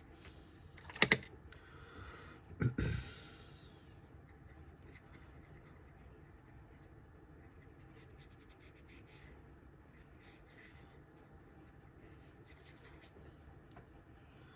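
Watercolor brush scratching faintly on paper as a background wash is laid in. About a second in there are two sharp clicks, and a deeper knock follows about a second and a half later.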